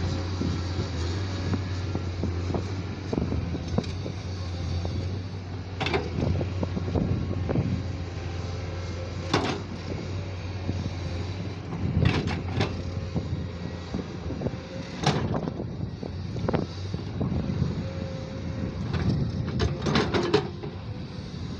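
JCB digger's diesel engine running steadily, with sharp metal clanks from the working arm and bucket every few seconds, a cluster of them near the end.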